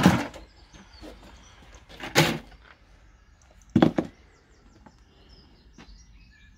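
Three loud, sharp knocks about two seconds apart: the heavy stone weight and the bucket caps being handled on the metal dustbins used for slaking quicklime. Faint bird chirps in the background.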